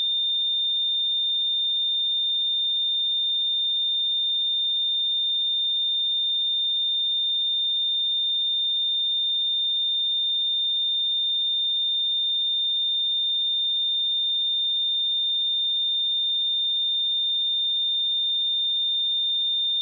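A pure 3617 Hz sine-wave test tone, a single steady high-pitched tone held at constant level without a break.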